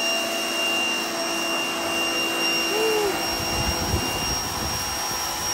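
Spear & Jackson 2200 W electric pressure washer running steadily: the water jet hisses on concrete paving over a constant pump-motor whine.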